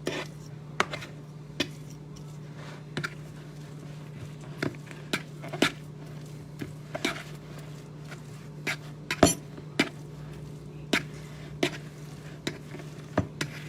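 Spoon knocking and scraping against a mixing bowl while stirring thick banana-and-oat cookie dough: sharp clicks at irregular intervals, roughly one a second, the loudest a little past the middle.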